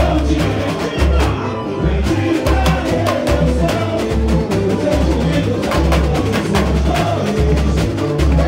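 Samba-enredo played by a samba school bateria: deep surdo drum beats repeating about once a second under the rattle of snare drums and tamborims.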